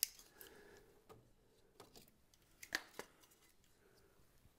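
Split wooden kindling sticks clacking against one another and the firebox as they are laid into a wood cook stove to build a fire: a handful of short, sharp knocks, the loudest near three seconds in.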